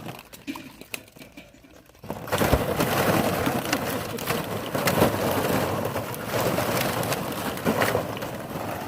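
Puppies scrambling among the hollow plastic balls of a ball pit: a dense clatter and rustle of many small clicks, starting about two seconds in after a quieter stretch.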